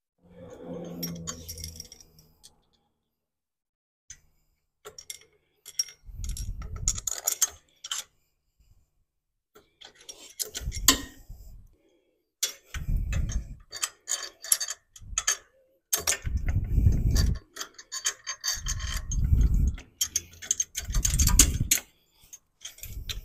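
Tools and metal parts clicking, clinking and knocking in bursts of a second or two as a vacuum pump is fitted onto a small-block Chevy engine to check its position.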